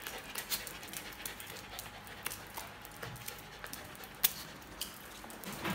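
Puppies' claws clicking and scrabbling on a tile floor as they hop and move about, a scatter of short sharp ticks, with one louder click about four seconds in.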